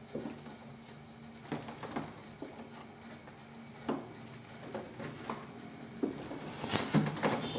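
Kittens at play: scattered light knocks and scuffles, coming closer together and louder near the end.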